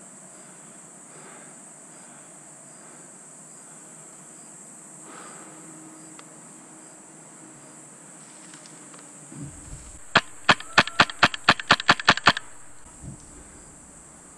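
Airsoft gun firing a quick string of about ten sharp shots in just over two seconds, starting about ten seconds in. Insects keep up a steady high drone throughout.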